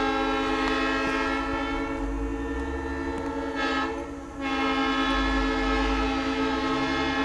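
Nathan M3 three-chime air horn blowing a steady chord, briefly dropping out about four seconds in and then sounding again.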